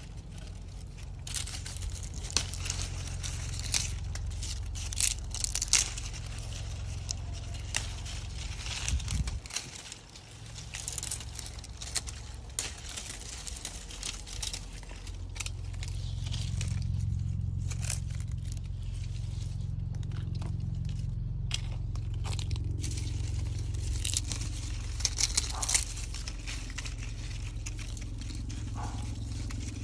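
Rustling and crinkling of fine garden netting and vine leaves as grape bunches are handled and picked, with scattered snaps and crackles. A steady low rumble runs underneath and grows louder about halfway through.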